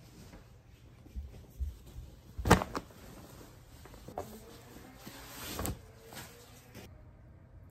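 Shopping bags, a paper one among them, rustling and crinkling as they are handled and emptied, with scattered knocks and thumps; the sharpest knock comes about two and a half seconds in.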